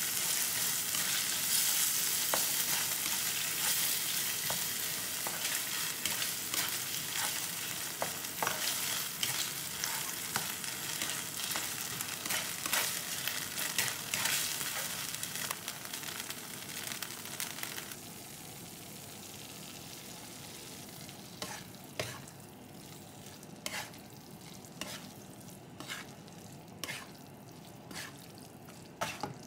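Minced meat, onion and tomato sauce sizzling in a nonstick wok as a spatula stirs it, with scraping and clicks of the spatula on the pan. About eighteen seconds in the sizzle drops away, leaving separate knocks of the spatula against the pan as spaghetti is tossed.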